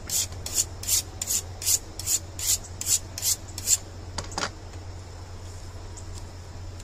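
A knife being honed on a sharpening steel: about ten quick, evenly spaced scraping strokes of blade along steel, a couple more a little later, then it stops.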